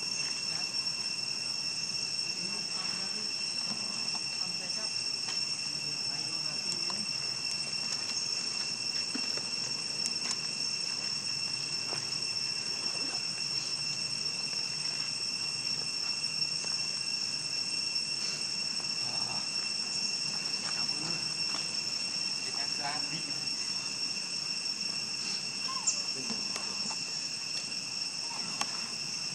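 Steady insect chorus: a continuous high-pitched drone that holds one even level throughout.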